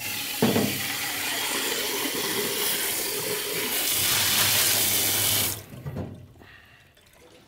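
Tap water running from a faucet into and over a plastic water-filter housing, rinsing it out in a stainless steel sink. The flow stops abruptly about five and a half seconds in as the tap is shut, followed by a couple of light knocks.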